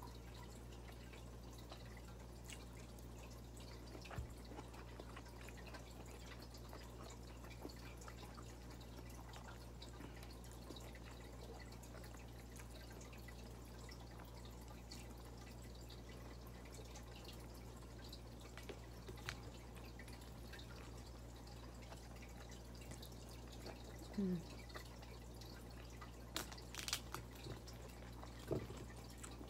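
Faint eating sounds: scattered wet clicks of chewing and lip smacks while eating with the hands, with a few louder smacks near the end, over a steady low hum.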